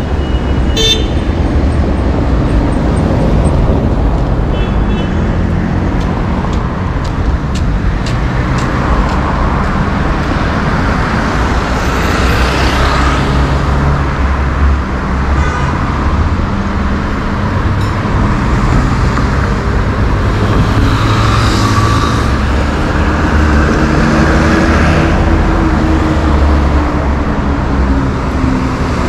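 Urban road traffic: car and motorcycle engines running and passing over a constant low road rumble, with a few short horn toots near the start.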